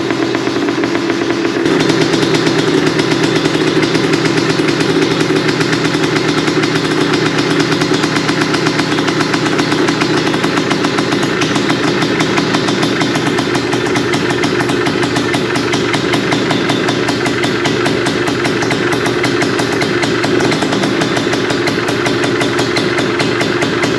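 Freshly rebuilt Honda Odyssey FL350R engine running steadily on its first run, held at low revs to break it in; it picks up a little, louder, about two seconds in.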